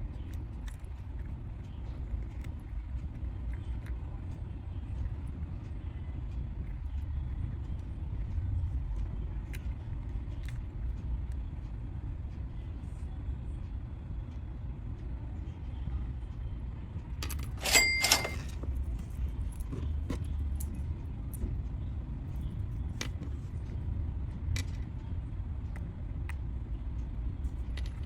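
Steady low rumble with scattered small clicks, and a brief metallic jingle about 18 seconds in.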